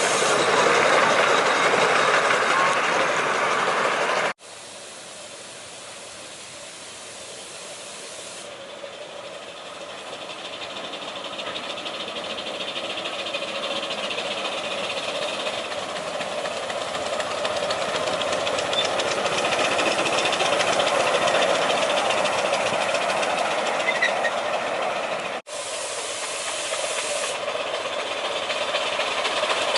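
A 7¼ inch gauge miniature train running, with a steady hiss that grows louder as it approaches. The sound breaks off abruptly twice.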